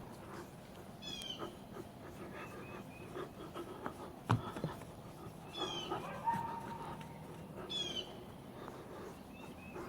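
Faint, short, high-pitched animal calls, each falling in pitch, repeating a few seconds apart, with one sharp knock about four seconds in.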